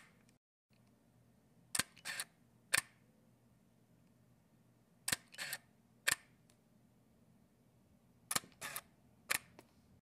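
Canon 5D shutter fired three times with the mirror out of the way and the lens attached. Each shot is a sharp click, a softer short burst, then a second click about a second later, with the three shots roughly three seconds apart.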